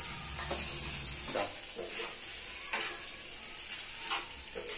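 A steel spoon stirring and tossing cooked fusilli through a tomato-onion masala in a hot pan, scraping against the pan about once a second, over a steady sizzle of the frying sauce.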